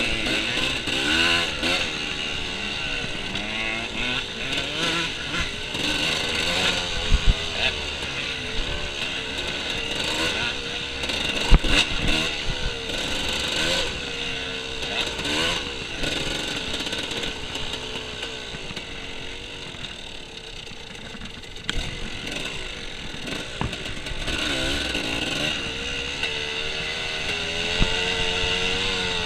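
Off-road dirt bike engine running hard, its revs rising and falling constantly as the rider works the throttle over the course, with a few sharp knocks along the way.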